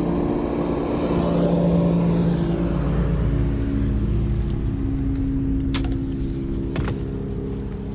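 Boat's outboard motor running steadily at trolling speed, a low rumble with a steady hum. Two sharp clicks come about six and seven seconds in.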